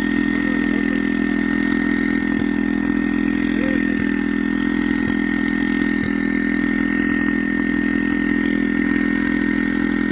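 Small petrol engine of a portable rail-track machine running steadily at constant speed, with a thin, steady high whine over it.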